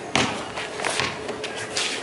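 Basketball bouncing on a concrete court, a few dribbles in a row.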